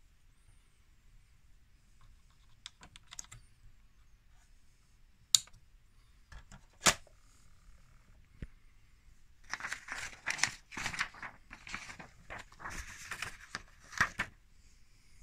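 Plastic clicks and snaps from handling a Canon i70 portable inkjet printer as its front cover is shut, then several seconds of paper rustling and crinkling as sheets are handled at the printer's rear feeder.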